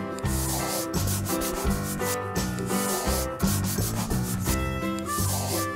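Scratchy rubbing of colouring-in strokes in repeated scrubbing passes, played over background music with a pulsing bass.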